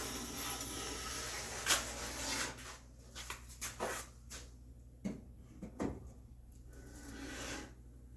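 Hand combination plane and wooden board being worked and handled: a rubbing stroke of wood on metal for the first couple of seconds, then a scatter of knocks and clicks, and a softer rub near the end. The plane is not cutting properly because its blade has shifted.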